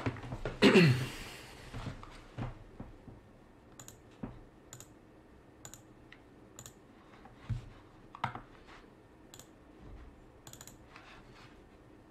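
Light, sharp clicks of computer input, scattered at roughly one a second, as windows are navigated on a slowing computer. A brief falling sound about a second in is the loudest thing.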